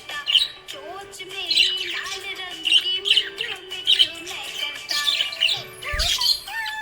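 Small pet parrots chirping and trilling in quick repeated bursts, over background music with sustained tones.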